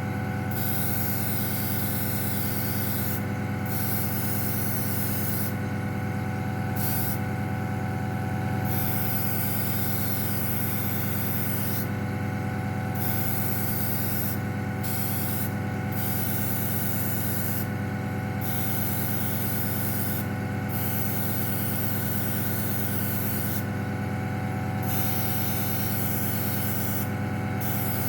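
Airbrush hissing as paint is sprayed on in spells of a few seconds, broken by about a dozen short pauses of the trigger. Under it, the air compressor hums steadily.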